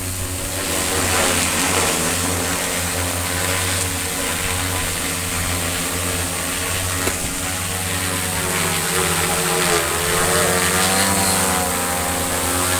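Multirotor agricultural spray drone's propellers and motors buzzing in flight, a steady layered whine whose pitch dips and climbs again about ten seconds in as the rotor speeds change.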